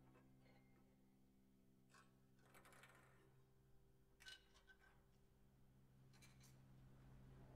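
Near silence: a few soft scrapes and light taps as objects are moved on the strings inside a prepared grand piano, about two, three, four and six seconds in, over a faint low steady tone.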